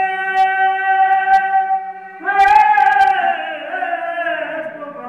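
A man singing a Balti qasida unaccompanied, holding one long steady note for about two seconds, then starting a new phrase that slides down in pitch.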